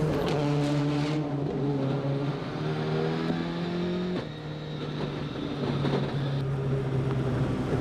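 A 2005 World Rally Car's turbocharged four-cylinder engine running hard through a stage. It eases off about halfway through, then pulls again.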